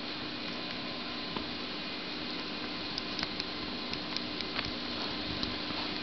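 A string of short light clicks and taps, mostly in the second half, over a steady hiss and faint hum: a Eurasian eagle owl chick pecking at the camera and its strap at close range.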